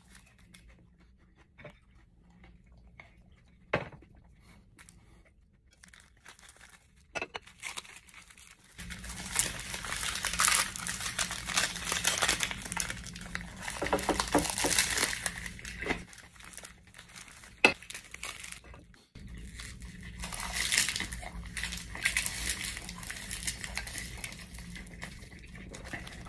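Crisp wasabi seaweed snack sheets crackling and crunching as a wrap of them is bitten into and chewed. The first several seconds are quiet, with a few soft handling clicks.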